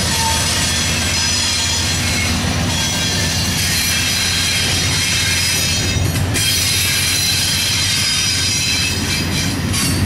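Norfolk Southern double-stack intermodal train rolling past close by, its steel wheels rumbling on the rail. Over the rumble there is a steady high-pitched wheel squeal of several tones.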